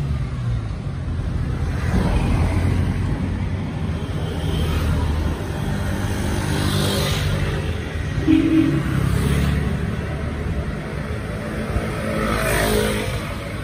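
Steady low motor-vehicle engine rumble, swelling about seven and about twelve seconds in.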